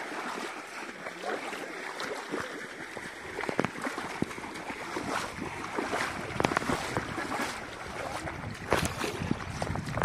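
Water splashing irregularly as several people wade through a shallow river.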